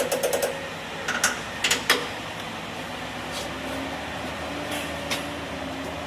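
A quick run of sharp clicks and knocks, then a steady mechanical hum with a faint held tone and an odd single tick.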